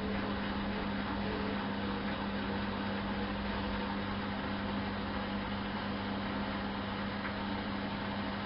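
Miele Softtronic W 204 washing machine running steadily through its Mini wash programme: an even motor hum with a strong, steady low tone.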